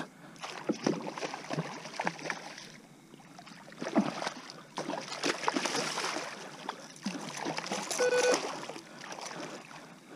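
Water splashing and churning as a hooked rockfish (striped bass) thrashes at the surface beside a kayak while it is being netted, with scattered clicks and knocks. The splashing is heaviest about four to six seconds in and again around eight seconds.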